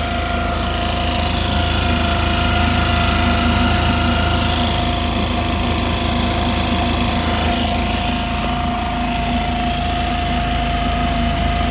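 Mercury 3.5 hp single-cylinder four-stroke outboard motor running steadily at quarter throttle, driving a kayak along.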